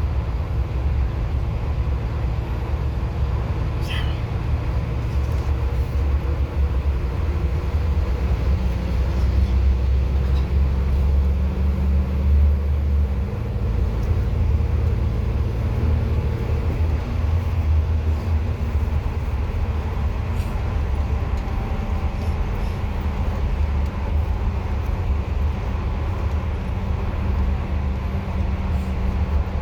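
A bus's engine drone and road noise heard from inside the cabin while under way, a steady low rumble that eases a little about 13 seconds in.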